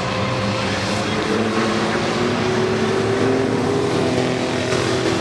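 Engines of several small pickup trucks racing together on an oval track, their overlapping notes forming a steady drone, with one engine's pitch rising slightly about halfway through.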